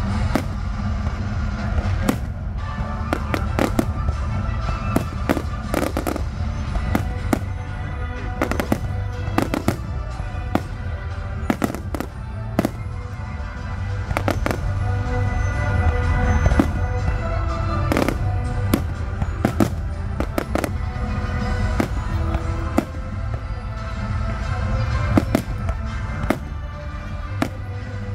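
Fireworks display: shells bursting with sharp bangs every second or so, over a continuous low rumble, with music playing along.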